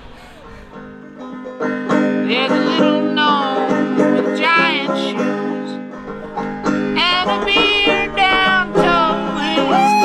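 Background music of plucked strings in a country or bluegrass style, coming in louder about a second and a half in.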